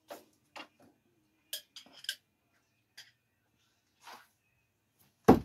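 Light metal clicks and clinks of screwdrivers being handled, then about five seconds in a single loud, sharp thud: a thrown screwdriver striking the wooden target.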